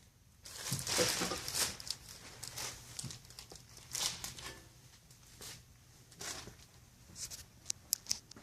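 Irregular scraping and rustling from something being handled, with a few sharp clicks near the end.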